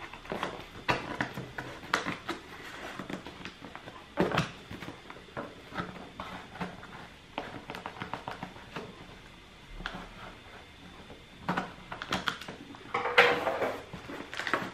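Fingers scratching, picking and tearing at the sealed end of a cardboard box to open it, giving irregular scrapes, clicks and crinkles of cardboard, with a louder flurry about 13 seconds in.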